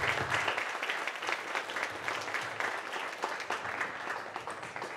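Audience applauding, dense clapping that gradually dies away toward the end.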